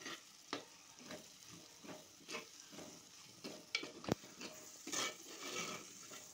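A spoon stirring and scraping dried mutton pieces in a clay cooking pot, with scattered clicks and one sharper knock about four seconds in, over a light sizzle of oil. The meat's water has cooked off and the oil has separated, the sign that this stage of the dry curry is done.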